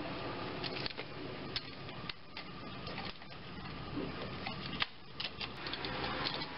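Irregular small metal clicks and clinks of a socket on an extension being spun by hand, running the starter's upper mounting bolt in.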